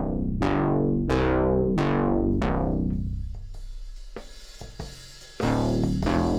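Music soundtrack with drums: four heavy struck chords ringing out, about two-thirds of a second apart, then a quieter stretch before the full band comes back in loudly near the end.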